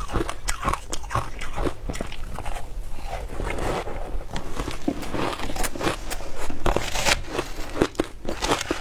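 Frozen matcha ice being bitten and chewed: a run of sharp cracks and crunches, denser in the middle.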